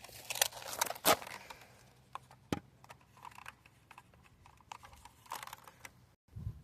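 Scattered light clicks and clacks from handling a toy foam-dart blaster, with sharper knocks about a second in and about two and a half seconds in.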